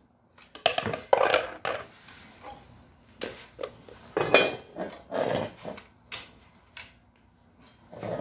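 Metal frame bars of a hoverboard buggy attachment being handled, set down and moved, clinking and knocking against each other and the wooden floor in a series of irregular clatters, loudest about four seconds in.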